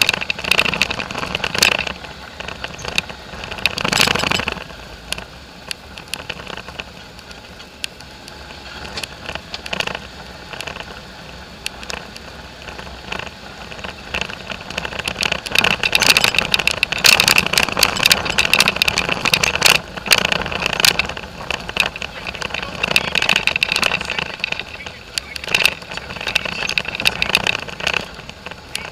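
Polaris four-wheeler running along a rough dirt trail, its engine noise mixed with frequent rattles and knocks as it bumps over the ruts. It is quieter from about five to fifteen seconds in, then louder again through most of the second half.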